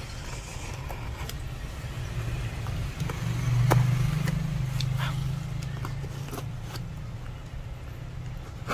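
Low steady rumble that swells for about two seconds near the middle, with scattered small clicks and taps.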